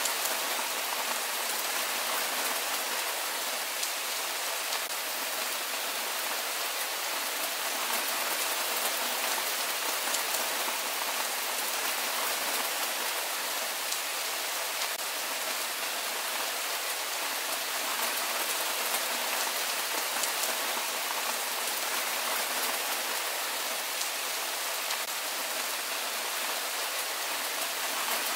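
Steady rain falling: an even hiss of many raindrops that holds at the same level without a break.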